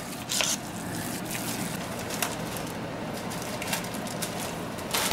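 Steady low background noise with a few faint clicks and knocks of kitchen handling at the counter.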